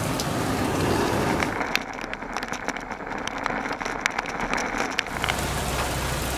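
Heavy rain falling on a travel trailer, an even hiss. For a few seconds in the middle the sound turns muffled, with many sharp ticks of raindrops striking close by.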